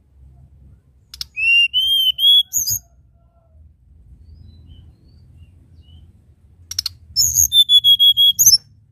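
Hill blue flycatcher singing two short phrases of clear whistled notes, each begun by a sharp tick. The first is a few slightly rising notes. The second, near the end, is a quicker run of repeated notes.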